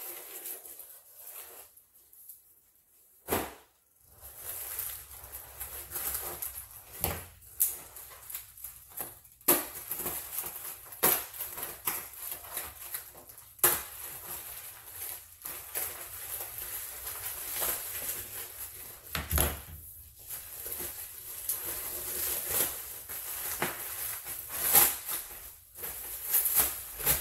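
Bubble wrap and taped plastic packaging being pulled apart by hand: irregular crinkling and rustling with many sharp crackles and snaps.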